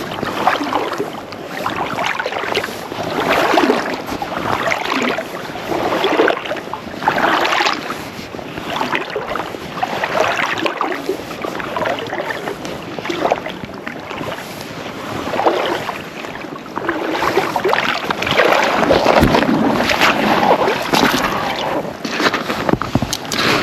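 Water sloshing and lapping in irregular surges every second or two, with wind buffeting the microphone.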